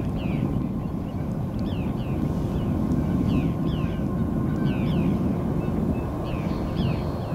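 A steady low outdoor rumble with a bird calling over it again and again: short, high notes that slur downward, often in pairs, a couple of times a second.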